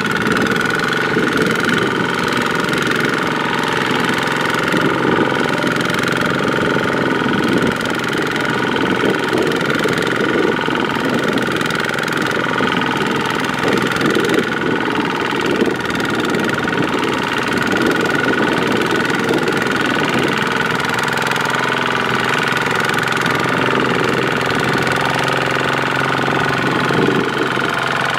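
Farm machinery engine running steadily under load, with a constant high whine over a dense low churn.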